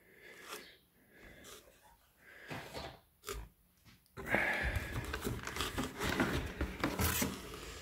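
Cardboard and packing paper rustling and scraping as they are handled: a few soft handling noises, then steady rustling from about four seconds in.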